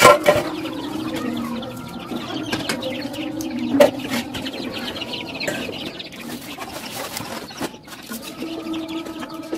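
Young chicks peeping and chirping around the feet. About four seconds in, a serving spoon knocks once against a metal cooking pot.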